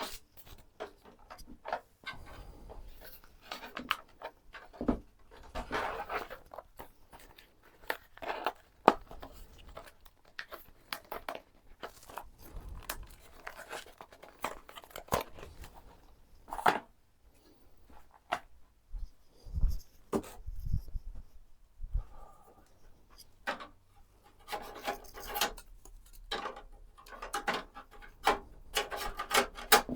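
Hands handling PC components during a build: irregular clicks, knocks and rubbing, with no steady machine sound.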